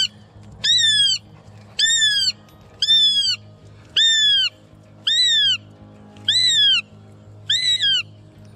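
Juvenile northern goshawk calling over and over: seven loud calls, about one a second, each rising a little and then falling away. A low steady hum runs underneath.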